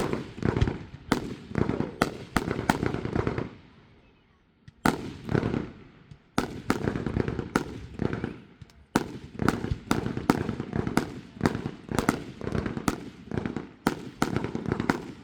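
Fireworks going off in rapid volleys of sharp bangs with rumbling echoes, with a short lull about four seconds in and another near the end.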